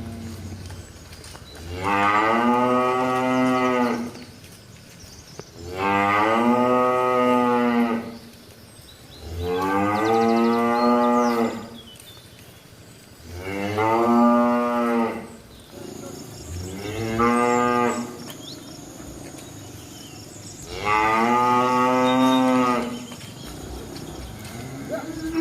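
A cow mooing six times in long, drawn-out calls, one about every four seconds.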